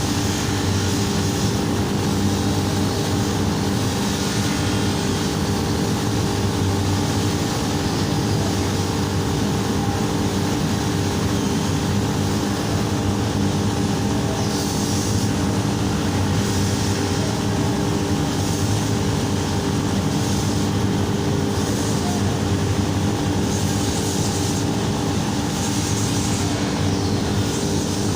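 A machine running steadily with a constant hum and whir, its level unchanging throughout.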